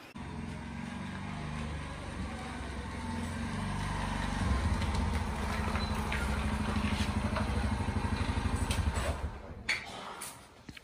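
Small motorcycle engine running as the bike rides up with two aboard. It gets louder about halfway through, then is switched off about nine and a half seconds in, followed by a few light clicks.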